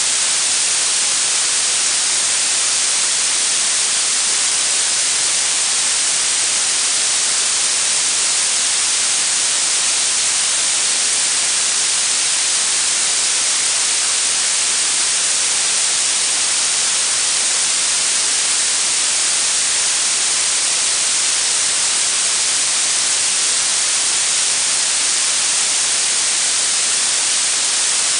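Synthetic blue noise: a steady hiss, strongest in the highest pitches and thin in the bass.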